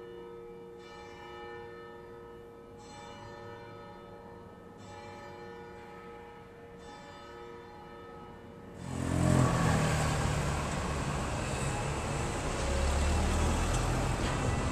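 A bell tolling slowly, about one strike every two seconds, each stroke ringing on. About nine seconds in, a much louder steady rushing noise with a low rumble takes over.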